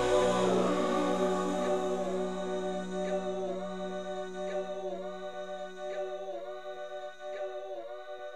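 Background music of sustained choir-like voices holding chords, the pitches dipping together every so often, slowly fading.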